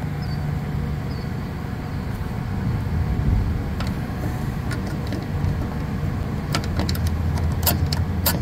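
Steady low drone of a running rooftop refrigeration condensing unit, with its compressor and condenser fan going. A few sharp clicks come near the end.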